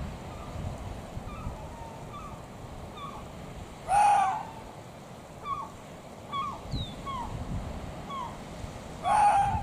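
Arctic fox giving two screaming calls, each about half a second long: one about four seconds in and one near the end. Faint short, high, falling chirps repeat in the background.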